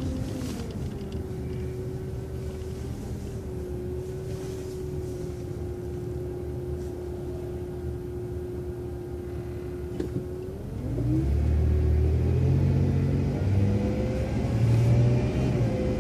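Transit bus engine and drivetrain heard from on board: a steady low hum with a whine. About eleven seconds in the bus pulls away, and the engine rumble grows louder while the whine rises in pitch.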